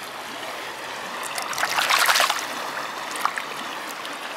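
Murky river water flowing steadily at the bank, with a burst of splashing about a second and a half in as a stone is dipped and rinsed in it by hand; water drips off the stone afterwards.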